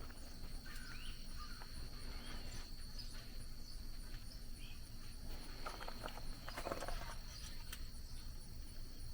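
Soft clicks and scrapes of a magnetized screwdriver probing inside a UTV engine's oil pan for the rollers of a failed bearing, a cluster of them about six to seven seconds in, over a steady high-pitched hum.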